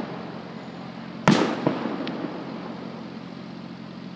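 Aerial fireworks shells bursting: one sharp bang about a second in, followed shortly by a couple of smaller cracks, each dying away in a long rumble.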